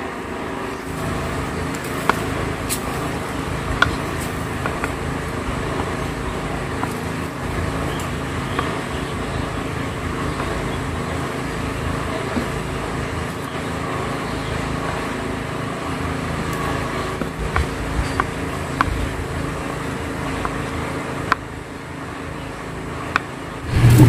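A steady low mechanical hum, like a motor running, with scattered light taps of a knife cutting aloe vera gel into cubes on a board.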